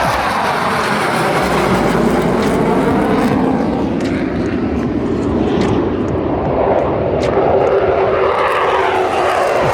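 F-16 Fighting Falcon jet flying past, its engine noise loud and steady, with a sweeping rise and fall in pitch as it passes and passes again.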